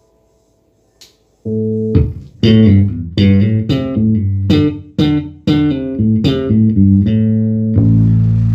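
Electric bass guitar played through a Markbass Little Mark 58R bass amp, sound-tested after repair of its power supply. A quick run of plucked notes, about two a second, then a held note near the end.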